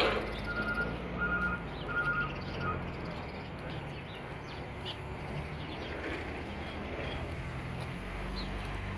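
A truck's reversing alarm beeping about every two-thirds of a second, stopping about three seconds in, over a steady running truck engine.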